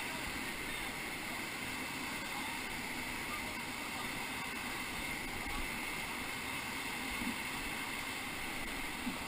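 Steady rush of whitewater river current around a raft.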